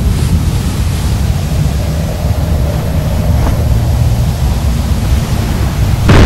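Deep, steady rumble, then a sudden louder boom near the end.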